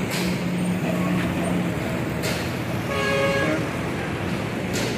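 Road traffic running steadily, with a vehicle horn giving one short toot about three seconds in.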